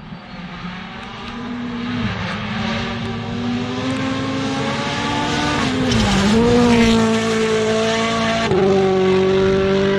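Rally car engine approaching and passing close at stage speed, getting steadily louder as its note climbs. The note dips briefly about six seconds in and drops sharply a couple of seconds later as the car goes by and the driver lifts or shifts.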